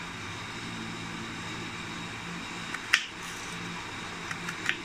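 Kitchen knife cutting a raw peeled potato into fry strips on a wooden cutting board: one sharp knock of the blade on the board about three seconds in and a few lighter taps near the end, over a steady low hum.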